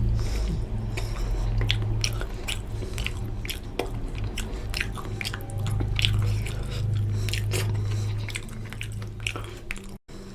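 Close-miked chewing of fish curry and rice: irregular wet mouth clicks and smacks over a steady low hum.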